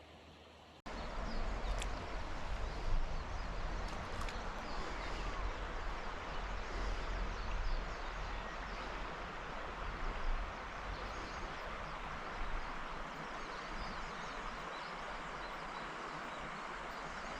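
Steady rushing of flowing river water, starting abruptly about a second in, with a low wind rumble on the microphone.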